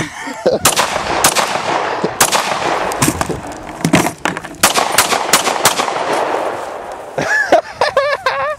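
A string of pistol shots, roughly two a second for about six seconds, followed by a person's voice shouting near the end.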